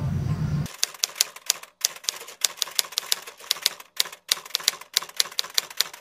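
Typewriter sound effect: rapid, uneven key clacks, several a second, with brief pauses. It begins under a second in, when a low room hum cuts off.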